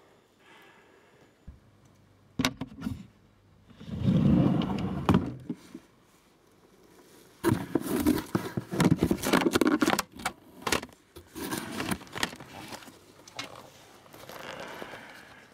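Irregular bursts of rustling and scraping with sharp clicks, like close handling of objects or clothing. The loudest bursts come about four seconds in and again from about seven to ten seconds in.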